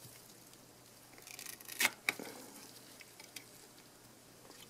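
Faint handling noise from gloved fingers working a Fluke 83 multimeter's plastic LCD frame and glass: a short rustle and scrape, then two sharp clicks close together just under two seconds in, followed by a few faint ticks.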